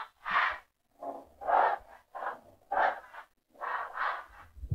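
Short breathy puffs of a person's voice close to a microphone, about two a second and unevenly spaced, with silence between them.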